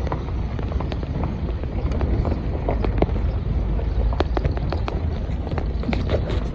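Car rolling slowly along a gravel road: a steady low rumble with many irregular sharp clicks and crunches of stones under the tyres.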